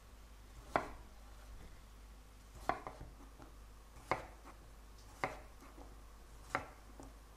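Chef's knife dicing a peeled raw potato on a wooden cutting board: about five slow, separate chops roughly a second apart, each a sharp knock of the blade through the potato onto the wood.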